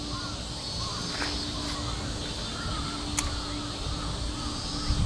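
Outdoor waterside ambience: a low rumble of wind on the microphone and a faint steady hum, under a run of short, repeated chirps. A single sharp click comes about three seconds in.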